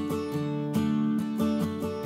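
Background music on acoustic guitar, plucked and strummed, with a new note or chord two to three times a second.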